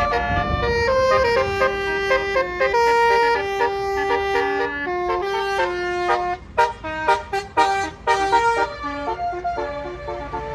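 Basuri telolet bus horn playing a melody in held, stepped notes, then a run of short quick toots a little past the middle, growing fainter near the end.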